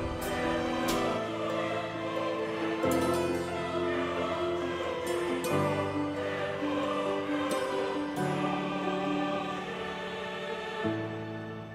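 Background music with slow, held chords, the bass note changing about every three seconds.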